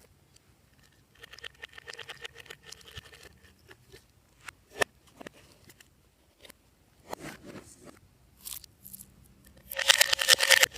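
Slime and its mix-ins being worked by hand, giving bursts of rapid crackling clicks with scattered single clicks between. The loudest, densest crackle comes near the end.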